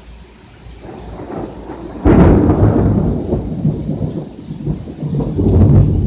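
Heavy tropical rain pouring steadily, then about two seconds in a sudden loud clap of thunder that rolls on as a low rumble, fading a little and swelling again near the end.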